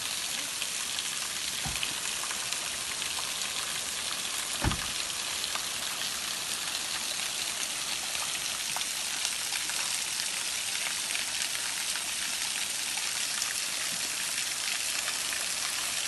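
Small waterfall splashing onto rocks in a steady hiss. Two brief knocks, about two seconds in and again just before five seconds.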